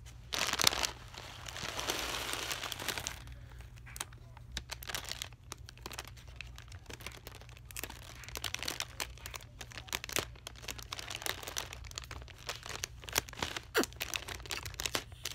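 Thin clear plastic being crinkled and picked at by hand: a burst of dense rustling in the first few seconds, then a long run of small irregular crackles.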